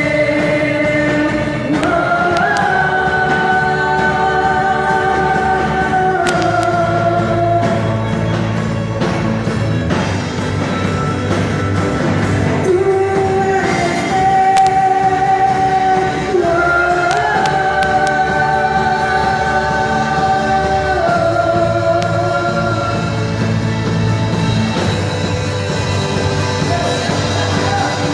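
Christian worship music: a band playing under singing voices that hold long, sustained notes, each lasting several seconds.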